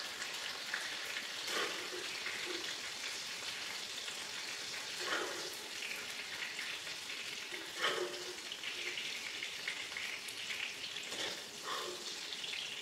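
Chicken pieces deep-frying in hot oil in a small kadai, a steady sizzle. A metal spoon knocks against the pan four times as pieces are lifted out, the loudest about eight seconds in.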